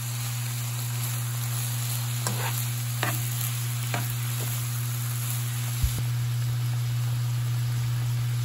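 Squid and thin-sliced pork belly stir-frying in a pan: steady sizzling with a few sharp clicks of a metal spoon against the pan as it is stirred. About six seconds in, the sound gives way to a pot of water at the boil. A steady low hum runs underneath.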